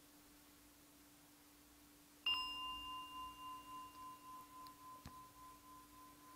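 A small singing bowl struck once about two seconds in, ringing with a clear high tone that wavers as it slowly fades, over a faint steady hum.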